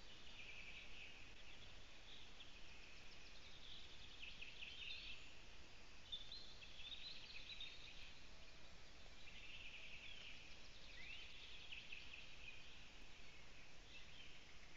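Faint songbirds singing in the surrounding forest: a steady mix of high trills and chirps, with one short rising note near the end, over a soft background hiss.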